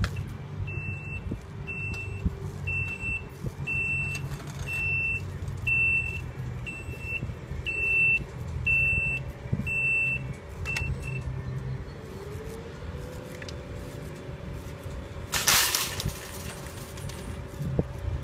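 A series of short high electronic beeps at one pitch, about one a second, over a low steady hum; both stop about eleven seconds in. A short loud rush of noise follows about fifteen seconds in.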